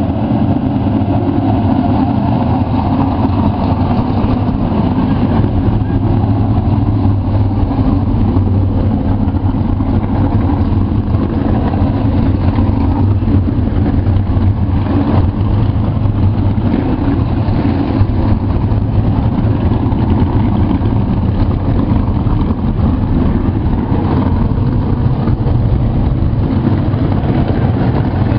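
Several dirt modified race cars' V8 engines idling together in a steady, loud, low rumble.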